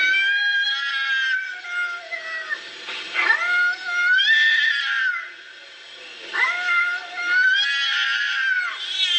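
Cats yowling at each other in a face-off: several long, wavering caterwauls one after another, with short pauses between. These are threat calls of an aggressive standoff that comes before a fight.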